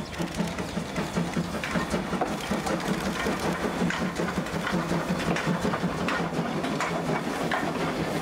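Steam train rolling slowly past: the C12 tank locomotive followed by its passenger coaches, with a steady rhythmic clatter of wheels on the rails.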